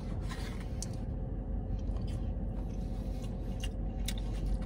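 A man chewing a mouthful of cheesesteak and fries, with a few short clicks near the end, over a steady low hum inside a car's cabin.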